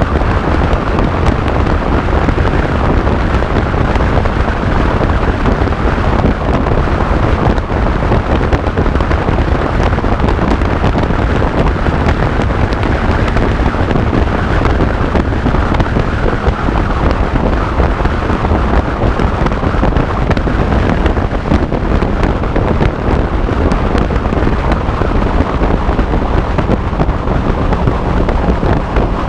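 Steady, loud wind buffeting the microphone on a Suzuki Bandit motorcycle ridden at about 100–110 km/h, with the bike's running and road noise underneath.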